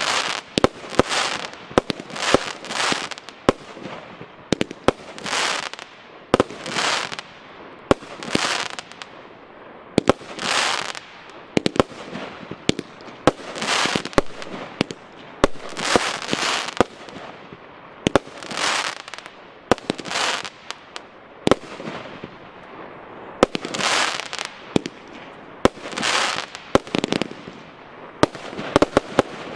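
36-shot, 30 mm consumer firework battery firing shot after shot. Sharp bangs, each followed by a rush of noise lasting about half a second, come roughly every one to two seconds.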